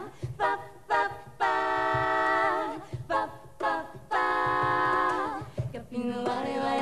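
Women's vocal ensemble singing a cappella in close harmony: short sung notes, then two long held chords, over soft low cajón beats.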